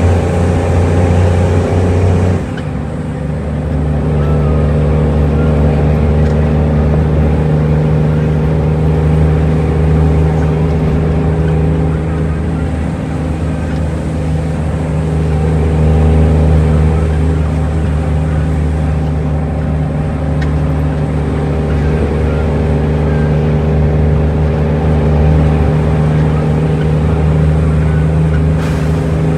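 Cummins N14 inline-six diesel in an International truck pulling on the road, heard from inside the cab as a steady, loud engine drone. About two seconds in the engine note changes and the level dips briefly, then builds again.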